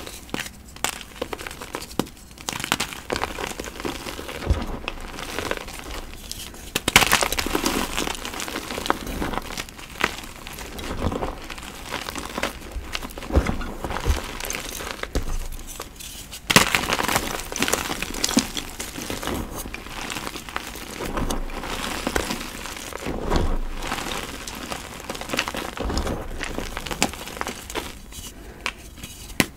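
Blocks of gym chalk crunching and crumbling: irregular crisp crunches and crackles, with louder bursts about a quarter of the way in and again just past halfway.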